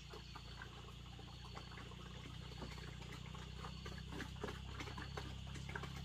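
Faint outdoor ambience of scattered small clicks and rustles over a steady low hum, with a faint high, pulsing insect-like tone.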